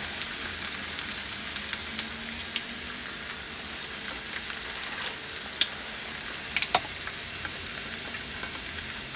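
Food sizzling on a hot ridged cast-iron griddle and in a frying pan, a steady crackling hiss with small pops. A few sharper clicks come from spatulas against the griddle, about five seconds in and again near seven seconds.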